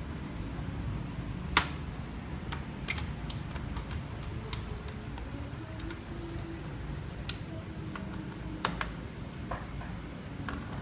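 Scattered sharp clicks and taps of small hard parts and tools being handled during laptop disassembly, irregularly spaced, the loudest about a second and a half in, over a steady low hum.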